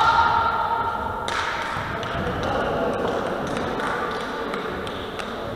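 Reverberant sports-hall ambience: indistinct voices of sitting volleyball players with a few light taps and thuds. A held high tone dies away about a second in.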